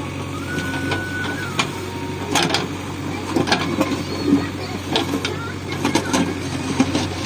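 JCB backhoe loader's diesel engine running steadily, with repeated sharp knocks and scrapes as the bucket digs into the tarred road surface.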